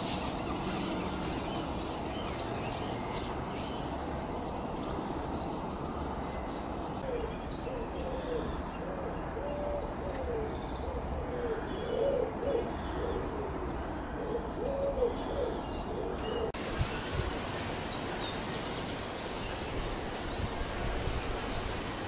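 A pigeon cooing in a run of low, repeated phrases that cuts off suddenly about three-quarters of the way through, with small birds chirping high-pitched at the start and again near the end.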